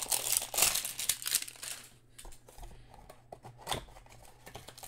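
Cellophane wrapper of a trading-card cello pack crinkling as it is torn open and pulled off, loudest in the first two seconds, then fading to a few faint rustles and clicks as the cards are handled.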